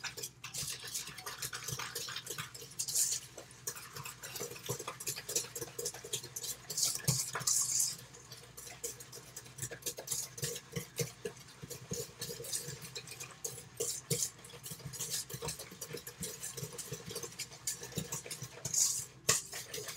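A utensil stirring applesauce and sugar in a metal mixing bowl, scraping and clinking against the sides as the brown sugar is broken up. The clinks are irregular, with a few louder scrapes along the way.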